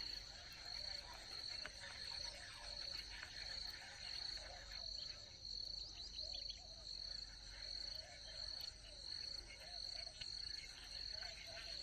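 Insects chirping outdoors: a faint, high-pitched chirp repeated in a steady, even rhythm throughout.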